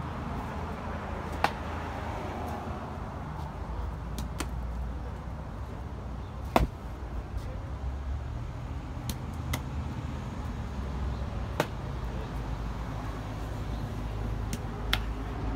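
Baseball bouncing once on paving stones and smacking into a glove: a handful of sharp, short knocks spaced a couple of seconds apart, the loudest about halfway through, over a steady low traffic rumble.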